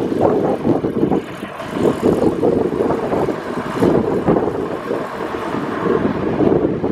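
Uneven, gusty rumble of wind buffeting the microphone over a vehicle's running noise.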